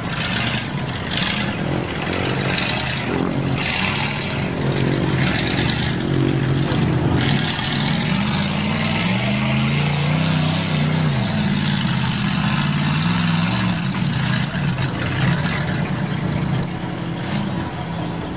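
Old lifted pickup truck's engine revving hard over and over, its pitch rising and falling, as it strains to climb out of a water-filled mud ditch. Tyres spinning in the water add a rushing hiss in the first half.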